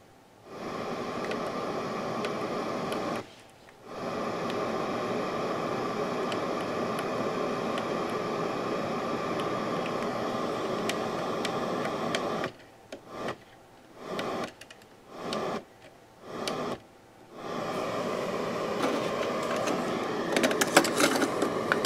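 FM static hiss from a Jensen car cassette radio as it is tuned across the FM band, broken by several short silent gaps as it steps between frequencies. No station comes in, the sign of its dead FM reception.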